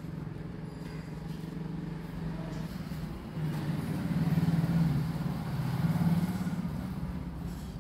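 A steady low engine hum that grows louder about three and a half seconds in and eases off near the end.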